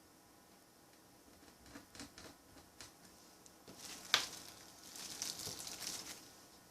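Light clicks and scratchy rustling from handling and driving tiny laptop screen-frame screws with a small Phillips screwdriver. There is a louder click about four seconds in, followed by a couple of seconds of scraping.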